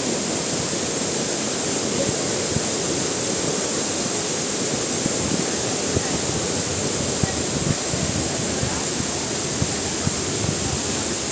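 Steady rush of a waterfall's falling water, with a few brief ticks scattered through it.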